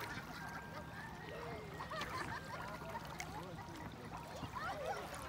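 Indistinct, distant voices of people calling and shouting as they play in the water, in short scattered bursts over a steady background hum.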